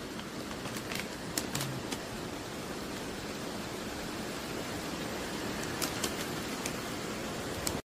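Steady hiss of background noise with a few light crinkles and clicks from a plastic treat pouch being handled and turned over.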